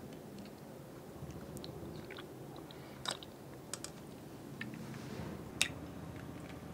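Wide plastic straw pushed and stirred through soft jelly and nata de coco cubes in a plastic cup: scattered small clicks and ticks, with two sharper ones about three and five and a half seconds in.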